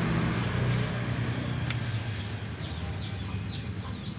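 A low engine drone fading away, a single metallic clink of a tool about halfway through, then birds chirping in a quick series of short falling notes.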